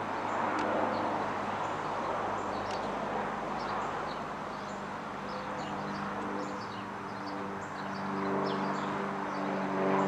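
Pitts S-2 Special aerobatic biplane passing overhead: its piston engine and two-bladed propeller make a steady drone that grows fuller and louder from about halfway through. Small birds chirp throughout.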